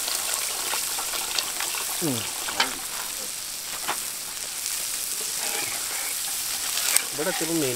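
Hot chili-and-tomato masala in a clay pot over a wood fire sizzling with a steady hiss as water is poured in, then a steel ladle stirring the curry base.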